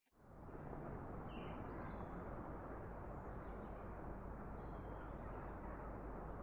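Faint, steady outdoor background noise with a few soft, distant bird chirps.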